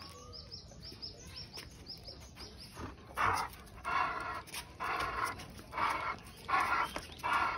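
Black Labrador play-growling in short repeated bursts, about one every three-quarters of a second from about three seconds in, while tugging on a rope leash held in its mouth. Birds chirp faintly in the first few seconds.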